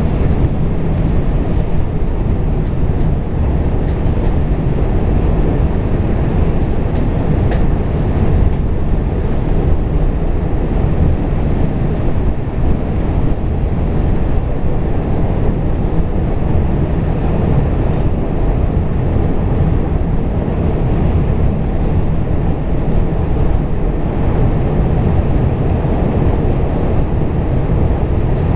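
New York City subway 2 train running steadily along the track, a continuous loud rumble of wheels and motors.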